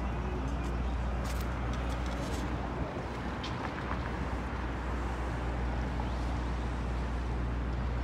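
City street traffic: a steady low rumble of cars and engines, with a few short clicks about a second and a half to two and a half seconds in.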